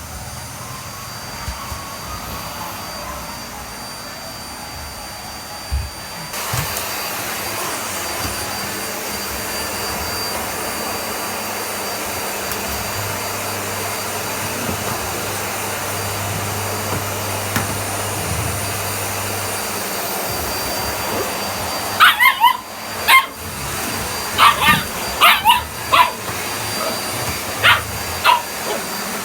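Vacuum cleaner running steadily, stepping up louder about six seconds in. From about twenty-two seconds a Chihuahua–Dachshund mix puppy barks at it in a run of about ten short, sharp yaps.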